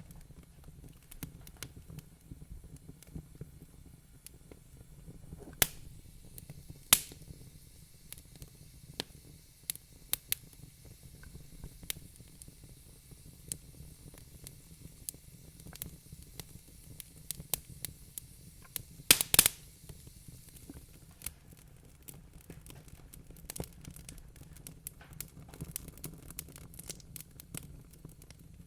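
Wood fire crackling: a steady low rustle of burning with scattered sharp pops, the loudest a few seconds in and a quick cluster of loud snaps about two-thirds of the way through.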